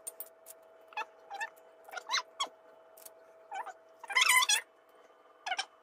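Scattered light taps and small metallic clinks of metal piping tips pressed into shortbread dough and handled on the counter, with a louder rattle about four seconds in.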